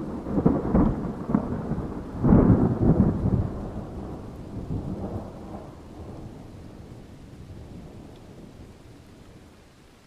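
Thunder peal: crackling claps, the loudest about two seconds in, then a long rolling rumble that slowly fades away.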